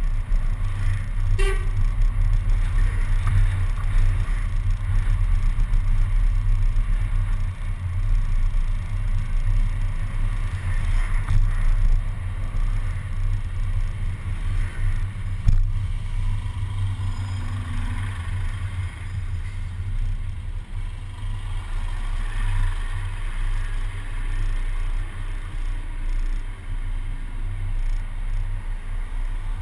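Low, steady rumble of wind and road noise on a camera mounted outside the front of a moving city bus, with surrounding traffic. Two short knocks, one about a second and a half in and one about halfway through.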